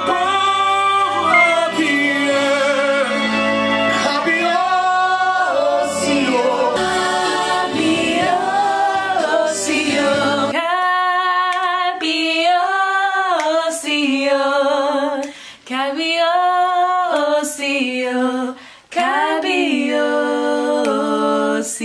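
Women singing a worship song. For the first half the voices sing over a backing track with bass and instruments; about halfway through the instruments drop out, leaving the voices alone, with two brief breaks near the end.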